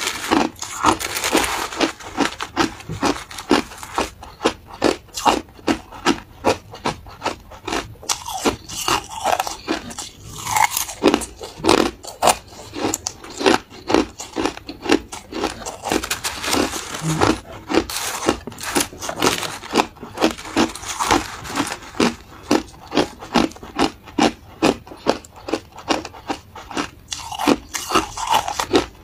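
Crushed ice being bitten and chewed close to the microphone: a quick, steady run of crisp crunches, about three a second.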